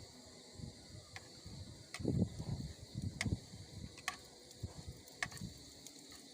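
Insects chirring steadily in the background, with scattered low knocks and rustling and several sharp clicks from things being handled close by.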